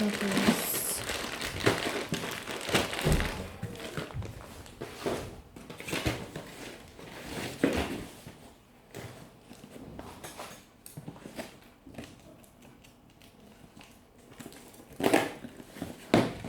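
Plastic packaging rustling and crinkling, with light knocks of small items being handled. Busy at first, sparse and quiet in the middle, busier again near the end.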